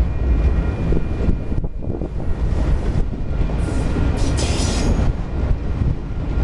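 Freight train autorack cars rolling past close by, a steady heavy rumble of steel wheels on the rails. A brief high-pitched wheel squeal comes in between about three and a half and five seconds in.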